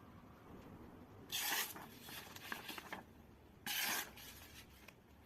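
Two short rasping strokes about two and a half seconds apart, each followed by fainter scrapes and clicks.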